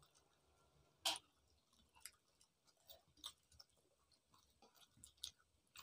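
Near silence broken by faint eating sounds of people eating rice by hand from steel plates: one short click about a second in, then a few scattered faint ticks.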